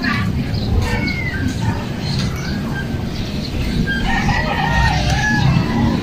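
A rooster crowing once, a long wavering call about four seconds in, with short bird chirps earlier and a steady low rumble throughout.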